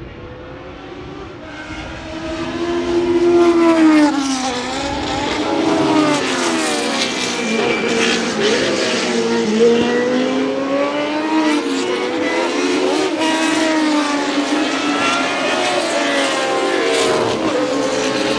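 Historic Formula 1 race car engine going past at speed, loudest about four seconds in as its pitch drops. The engine note then keeps rising and falling sharply, as with revving and gear changes.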